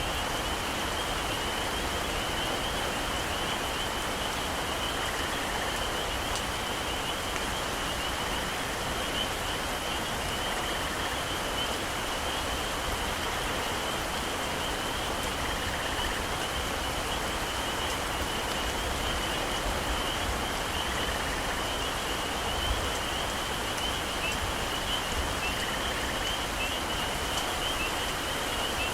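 Heavy rain falling steadily in a tropical forest, an even wash of hiss and patter. Over it runs a constant high-pitched chorus of calling animals.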